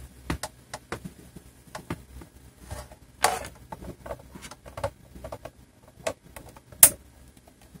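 Hands handling an Ethernet cable and plugging it into the WAN port of a Zyxel Multy M1 (WSM20) mesh router: scattered small clicks, taps and scrapes of plastic, with a sharper click about seven seconds in.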